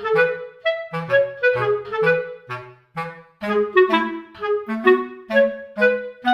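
Background music: a bouncy melody of short, separate notes with a clarinet-like tone over a lower bass line.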